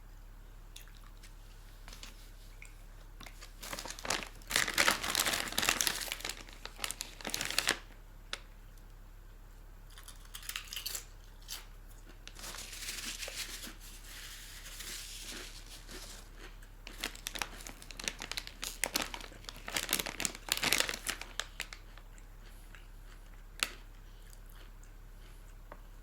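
Plastic food packaging crinkling and tearing as it is handled and opened, in irregular bursts with pauses between, and one sharp click near the end.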